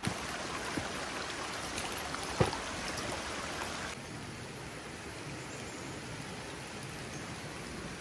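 Heavy rain pouring steadily, with one sharp tap about two and a half seconds in.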